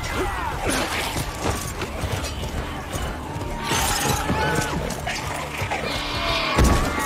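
Film battle soundtrack: dramatic score under the clash and crash of close combat, with weapons striking, cries wavering in pitch, and a deep rumble beneath. A heavy thump lands near the end.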